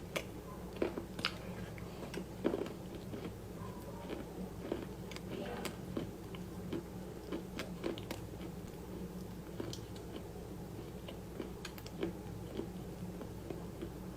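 Close-miked eating of crunchy food: bites and chewing give irregular crisp crunches, a few a second. A steady low hum lies underneath.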